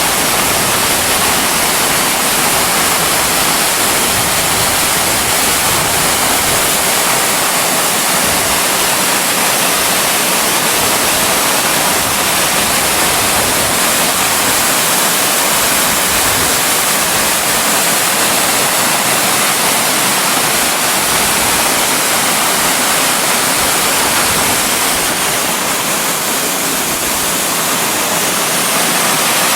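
Waterfall rushing: a steady, loud roar of falling water at Ichijō Falls, easing slightly a few seconds before the end.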